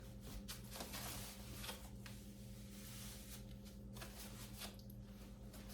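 Faint rustling and handling of a leather handbag and its strap, with a few light clicks, over a steady low electrical hum.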